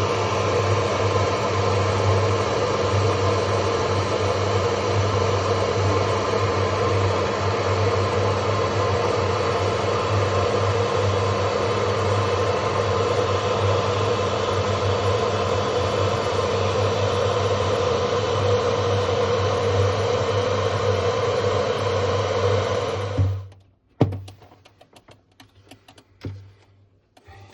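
Hair dryer blowing steadily with a motor hum, melting the frost off the freezer's iced-up evaporator fins. It switches off abruptly about 23 seconds in, followed by a few light clicks.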